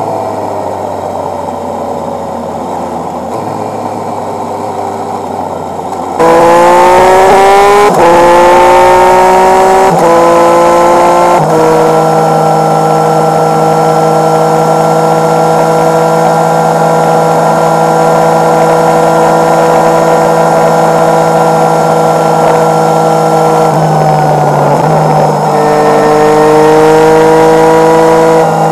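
Motorcycle engine under a quieter steady rush for the first six seconds, then suddenly louder as it accelerates hard through three upshifts, its pitch climbing and dropping back at each gear change. It then holds an even cruising note, and near the end dips and climbs once more.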